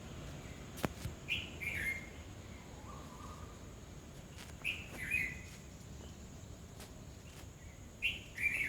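A bird calling: a short two-note chirp, the second note falling, repeated three times at even intervals of about three and a half seconds.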